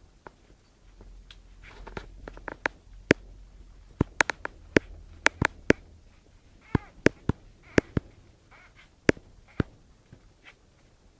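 Young puppies giving faint squeaks and whimpers, among many sharp irregular clicks and taps that are the loudest sounds.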